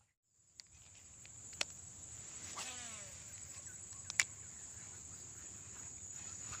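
Steady high-pitched drone of insects, such as crickets, with two sharp clicks and a short, falling call about two and a half seconds in.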